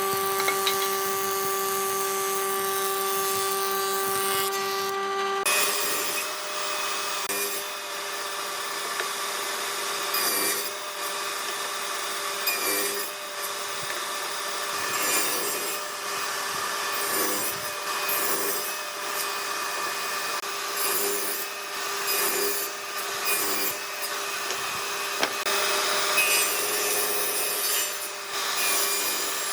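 An electric woodworking power tool whining steadily. About five seconds in, it starts working wood in repeated passes, with a rasping stroke swelling about every two seconds over the motor's hum.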